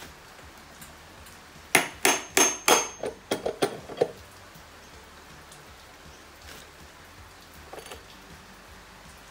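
Claw hammer striking an outboard motor's flywheel to knock it loose from the crankshaft: four hard ringing metal blows in quick succession, then about five lighter taps.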